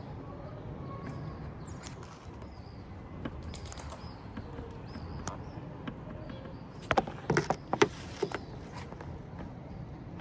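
Toyota RAV4 (XA50) cabin with steady road rumble and scattered light ticks, then a quick cluster of sharp knocks about seven seconds in: the knocking from the panoramic sunroof.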